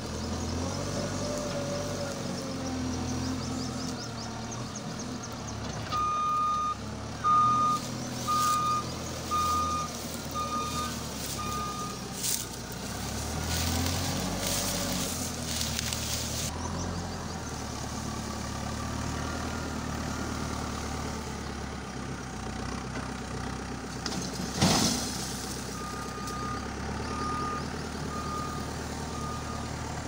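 JCB 3CX backhoe loader's diesel engine working, its level rising and falling. Its reversing alarm beeps steadily, about one and a half beeps a second, in two spells: for about six seconds a fifth of the way in and again near the end. About three quarters of the way through comes a single loud crash.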